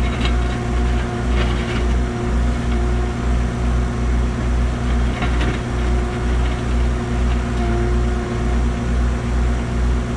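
Cat 301.7 CR mini excavator's diesel engine running steadily with a regular low throb, under a steady hydraulic whine as the arm controls are worked. A few brief bursts of noise come through on top.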